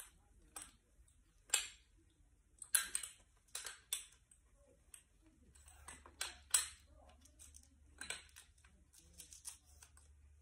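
A lightweight folding camp chair's frame poles clicking and knocking as they are fitted into its joints, with light handling rustles. The clicks are irregular, roughly one every second or so, the sharpest a little past the middle.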